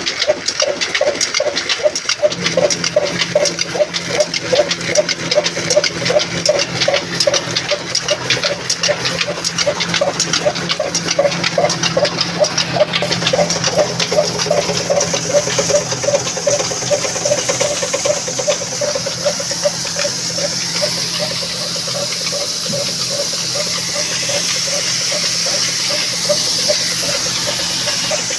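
Stationary diesel engine with a large flywheel running with a steady, rhythmic beat, driving a belt-driven grain cleaner. A steady hum from the driven machinery joins about two seconds in. From about halfway a high hiss builds, as grain runs over the shaking sieves.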